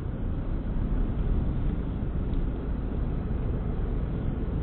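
Steady low rumble of a car on the move, tyre and engine noise heard from inside the cabin.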